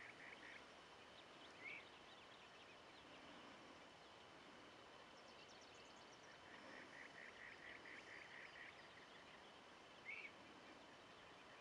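Faint dawn birdsong over a low steady hiss: a run of quickly repeated notes that ends just after the start and returns about six and a half seconds in, with two short upswept chirps, one near two seconds in and one near ten.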